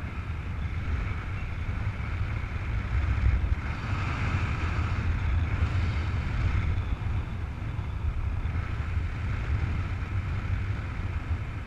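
Steady wind rushing over the camera's microphone in flight under a tandem paraglider, a heavy low buffeting rumble with a hiss that swells a little from about three to seven seconds in.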